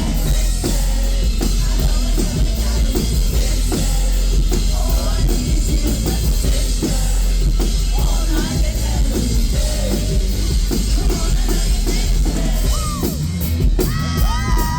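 Rock band music with a driving drum kit and heavy bass, and a voice singing or yelling over it. Near the end, high whooping voices rise over the music.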